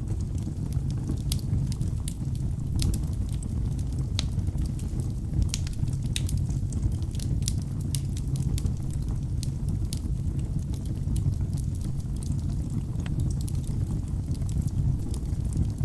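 Wood fire burning in a fireplace: a steady low rush of flame with frequent, irregular sharp crackles and pops from the burning logs.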